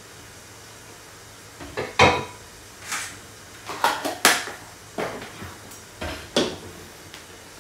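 Kitchen clatter from cookware being handled: about ten sharp knocks and clicks of a wooden spoon, pots and a plastic tub, starting about a second and a half in, the loudest knock about two seconds in.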